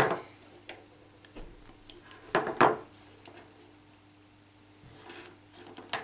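Fingers handling and untwisting the solid-core wires of a Cat5e cable: rustling and small clicks of copper and plastic, with a louder rustle about two and a half seconds in and a sharp click near the end.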